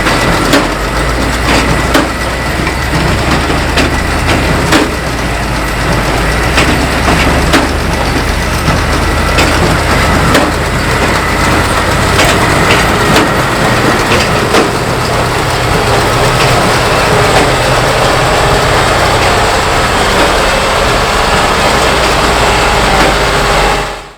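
Tractor and large square baler running in the field, a steady heavy engine drone with irregular knocks and cracking from the baler working straw. It cuts off suddenly near the end.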